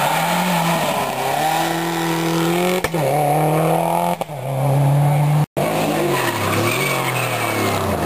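Rally car engines revving hard through corners, the note climbing and dropping with throttle and gear changes. The sound breaks off abruptly a few times as one car's pass cuts to another's.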